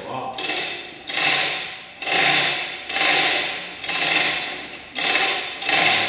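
Ratchet mechanism clicking in repeated strokes, about six of them at roughly one a second.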